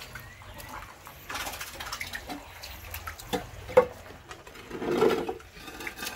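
Shallow water in a concrete crayfish tank sloshing and splashing as a roof-tile shelter is lifted, with a few sharp knocks of the tile. The loudest knock comes a little before the middle, and a swell of splashing follows about a second later.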